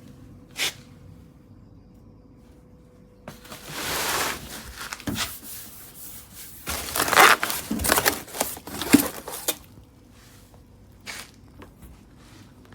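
Scraping, rubbing and crinkling handling noises: a burst about three seconds in, then a louder, denser stretch from about six and a half to nine and a half seconds, with a single sharp click near the start.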